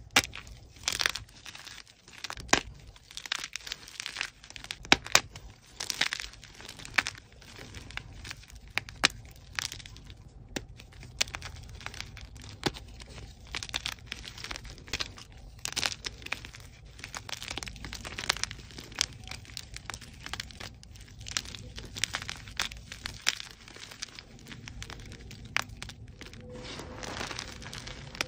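Soft plain white gym chalk blocks being crushed and crumbled by hand: irregular sharp cracks and snaps as pieces break, between softer crunching and powdery crumbling. Near the end it turns to an even, softer crunch as handfuls of loose chalk are squeezed.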